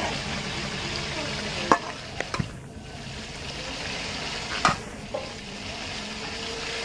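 Oil sizzling steadily with fish frying in it, with a few sharp clinks of a metal spatula against a metal bowl of fish; the loudest clinks come near two seconds in and near five seconds in.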